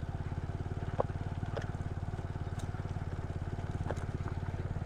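Motorcycle engine running at low revs with a steady, even low pulse, with a few light sharp clicks or knocks over it.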